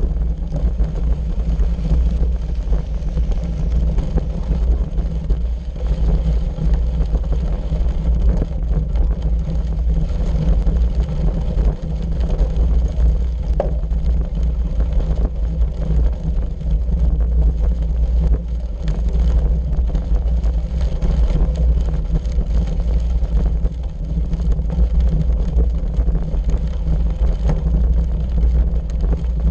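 Steady low rumble of bicycle tyres rolling over a gravel road, mixed with wind buffeting the microphone of a bike-mounted camera.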